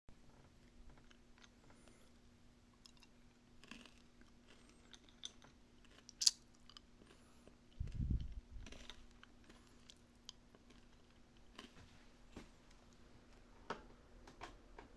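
Close-up chewing and crunching of food, a scatter of small wet clicks and crunches over a faint steady hum. A sharp click comes about six seconds in and a low thump about eight seconds in.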